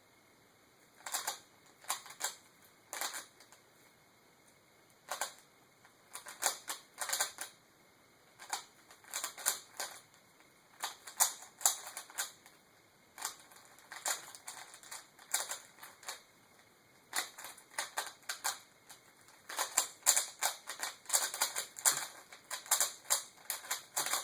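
3x3 Rubik's cube being turned fast during a solve: quick runs of sharp plastic clicks from the layer turns, broken by short pauses.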